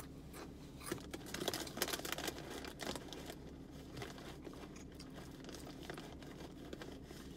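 Close-up mouth sounds of someone chewing a crunchy snack: a run of small crackles for about the first three seconds, then fading to a steady low hum.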